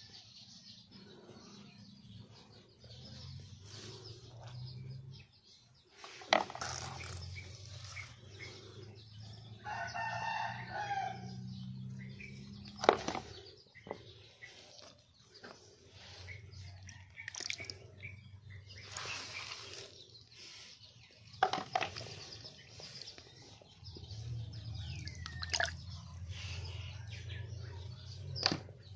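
A rooster crows once, about ten seconds in, over a low hum that comes and goes. Several sharp clicks are heard; the loudest comes about thirteen seconds in.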